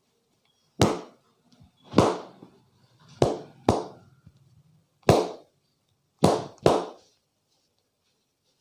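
Seven loud, sharp hand slaps of a vigorous head and body massage, some single and some in quick pairs, each dying away quickly.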